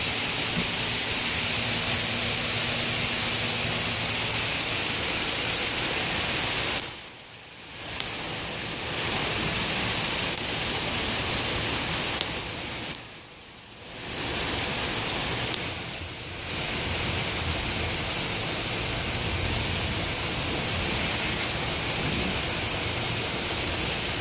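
Small hailstones falling in a dense, steady hiss as they pelt the ground and pavement. The sound dips briefly quieter twice.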